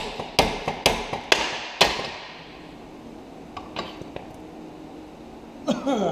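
Hammer striking a BMW E36 rear subframe bushing, five sharp blows about two a second, driving the old bushing out of the subframe. A few light taps follow, and a short falling squeak near the end.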